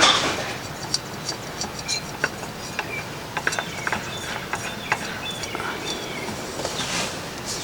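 Light metallic clicks and scrapes with a short rustle at the start, as a spin-on oil filter is handled and threaded on by hand.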